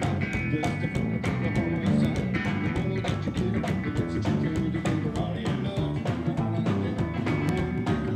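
Live rockabilly band playing, with upright bass and drum kit keeping a steady beat.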